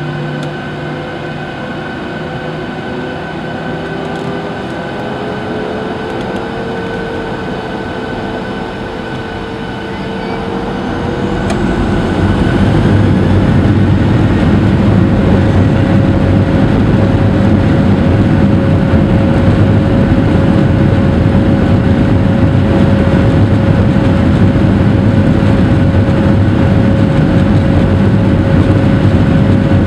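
Boeing 737-800's CFM56-7B turbofan engines heard from inside the cabin: a steady whine at low thrust, then about ten seconds in they spool up over a couple of seconds, the tone rising, and run on at takeoff thrust as a loud, steady rush with a high fan tone.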